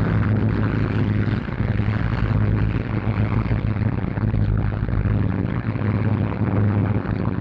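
The four Bristol Hercules radial engines of a Short Stirling heavy bomber running in a steady, deep drone that swells and eases slightly a few times.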